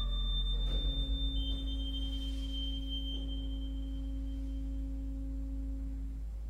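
Sustained contemporary organ tones from the pipe organ of Kunst-Station Sankt Peter, Cologne. A high, pure whistling tone gives way to a slightly lower one about a second and a half in and fades. A middle tone is held from about a second in until near the end, over a deep steady drone.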